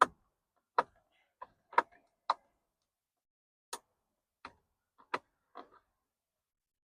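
Screwdriver clicking and tapping against metal and plastic inside the airbag release hole of a C6 Corvette steering wheel while probing for the spring pin that holds the airbag. About nine sharp clicks come at uneven intervals, with a gap of over a second near the middle.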